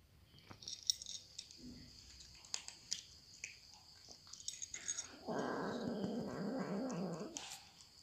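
Two cats eating dry kibble from a glass bowl: scattered crisp crunches and clicks, then, a little past the middle, a low wavering growl of about two seconds from one of the cats, the loudest sound.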